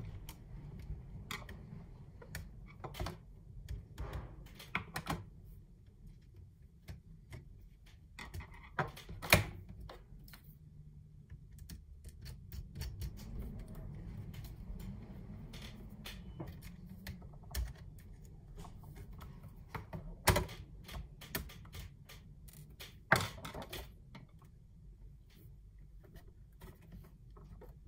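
Irregular small clicks, taps and knocks of hands and a small screwdriver working on the plastic body of a DJI Mavic Air drone against a wooden tabletop, as screws come out and covers are worked loose. A few sharper knocks stand out along the way.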